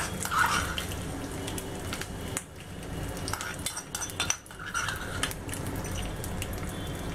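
Small steel tempering pan clinking and scraping as the tempering is tipped and knocked out onto coconut chutney: a string of short metallic clinks.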